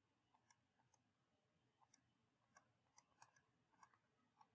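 Near silence, with faint, scattered light clicks from a stylus tapping on a tablet as a word is handwritten.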